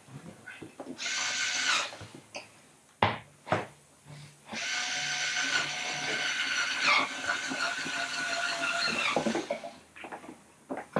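Small cordless electric screwdriver whirring in runs as it turns screws in the theater seat's back panel: a short run about a second in, then a longer run of about five seconds from the middle, its pitch dipping briefly partway. Two sharp knocks come between the runs.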